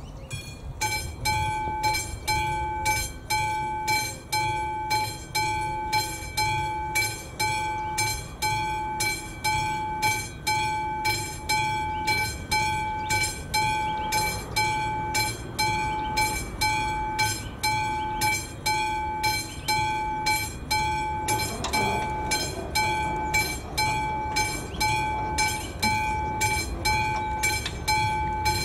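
Classic mechanical warning bell of an AŽD 71 level crossing ringing, starting at once and striking about twice a second, each stroke ringing out: the crossing's warning that a train is approaching.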